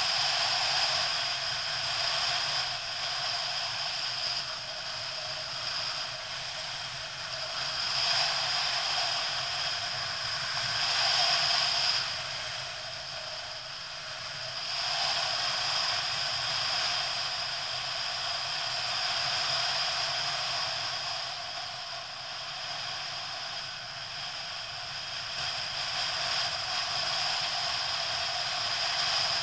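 Motorcycle on the move, its running and road noise picked up through a bike-mounted camera as a steady mechanical rattle and hiss. The noise swells for a few seconds near the middle, then settles back.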